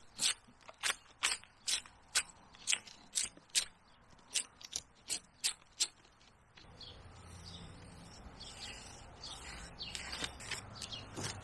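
A rapid, regular series of sharp clicks, about two or three a second, for about six seconds, then a steady outdoor hiss with a low rumble.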